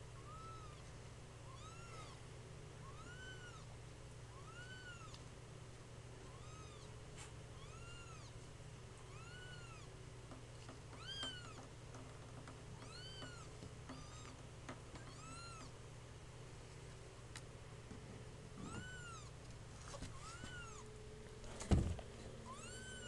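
Two-week-old kitten mewing over and over: short, high, rise-and-fall mews about once a second, over a steady low hum. A sharp thump sounds near the end.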